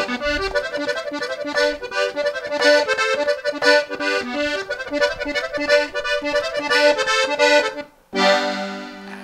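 Hohner button accordion playing a fast melody of quick, detached notes. It stops just after eight seconds in, then a single held chord sounds near the end.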